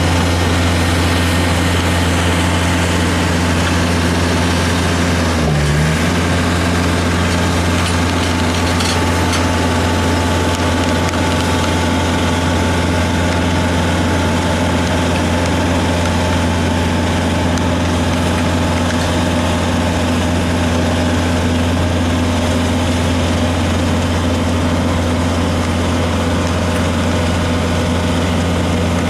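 Heavy construction machine's diesel engine running steadily at a constant speed, a loud, deep, even hum.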